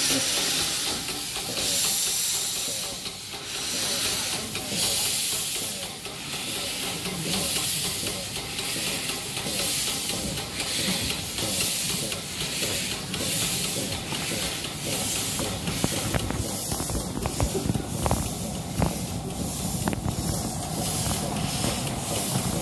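Small narrow-gauge steam locomotive pulling away, heard from its footplate: regular exhaust chuffs that quicken as it gathers speed, over a steady hiss of steam.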